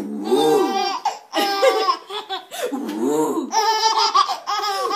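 Two babies laughing hard in repeated high-pitched fits, one burst after another.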